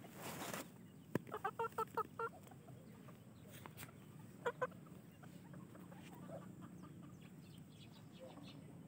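Serama chicken clucking: a quick run of about seven short calls about a second in, then two more near the middle.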